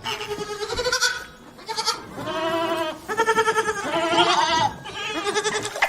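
Goat bleating: about four wavering calls in a row, each with a quavering tremble in the voice.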